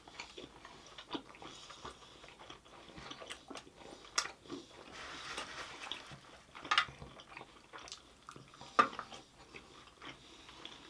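Close-up eating sounds: chewing and biting food, with scattered mouth clicks and three sharper crunches or smacks about four, seven and nine seconds in.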